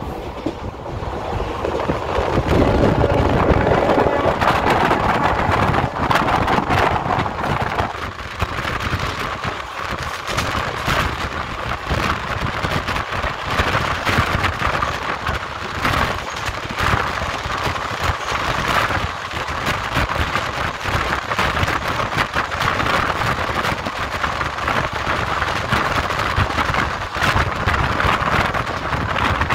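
Train running at speed, heard from an open door: a steady rumble of wheels on rails with irregular knocks, and wind buffeting the microphone.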